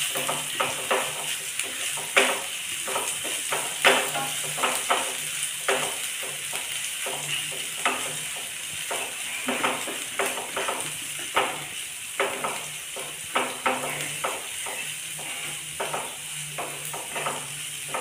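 Onions with ginger-garlic paste frying in ghee in a nonstick pan, sizzling steadily, while a spatula stirs and scrapes them in quick, irregular strokes.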